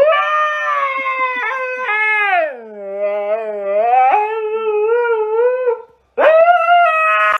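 Husky howling: one long howl that rises and falls in pitch, then a short break about six seconds in and a second howl.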